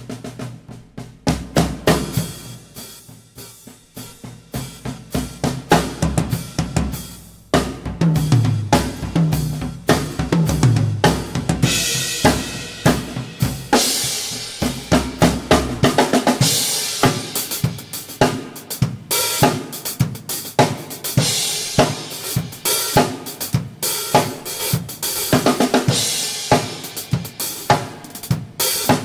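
Acoustic drum kit played alone, a gospel groove on snare, bass drum and hi-hat with Sabian cymbals. It starts softly and builds, with a run of low pitched drum strokes around eight to eleven seconds in and louder cymbal wash from about twelve seconds on.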